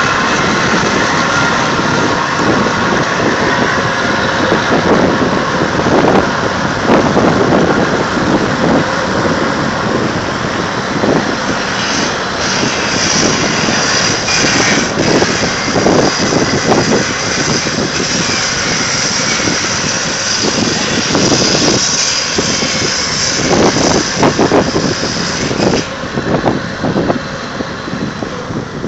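Tugboat's engine running under load as its hull breaks through harbour ice, with irregular cracking and crunching of the ice against the hull.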